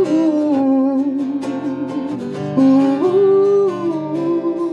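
A man singing long, wordless notes that step up and down, over a strummed acoustic guitar, in a solo live performance.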